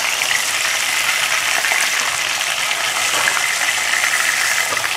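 Thin strips of marinated beef shallow-frying in hot oil in a nonstick frying pan, sizzling steadily, with the light scrapes and clicks of a spatula moving the meat out of the pan.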